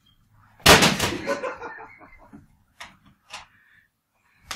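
A laptop taking a hard blow: one loud crash with a clattering tail that fades over about a second and a half, then two small clicks. This is the blow that breaks it.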